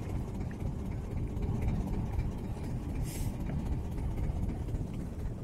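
Steady low rumble aboard a small fishing boat on the water, with a brief faint hiss about three seconds in.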